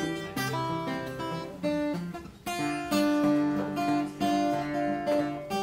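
Acoustic guitar playing a tune, with picked notes and strummed chords ringing and changing every half second or so.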